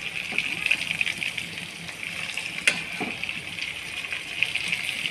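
Marinated chicken legs sizzling in oil in a steel pan: a steady crackling hiss. A metal spatula gives one sharp clink against the pan about two and a half seconds in.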